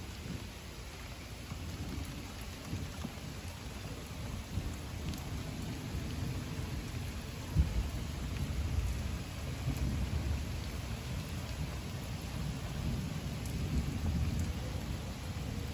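Steady rain falling while thunder rumbles, the rumble growing louder in the second half. A sudden loud thump comes about halfway through.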